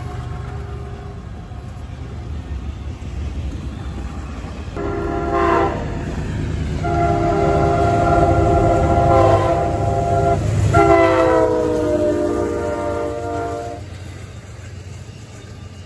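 Diesel locomotive's multi-chime air horn over the low rumble of a passing train. It gives a short blast about five seconds in, then a long blast whose chord drops in pitch about eleven seconds in as the locomotive goes by.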